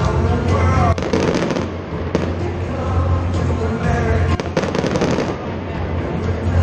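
Fireworks going off over music with a heavy bass. There are sharp bangs about a second and two seconds in, then a dense run of crackling bursts past the halfway point.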